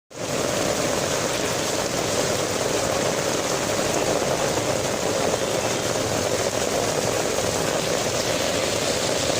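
Steady, even noise of heavy rain, mixed with the engines of vehicles running in stalled traffic.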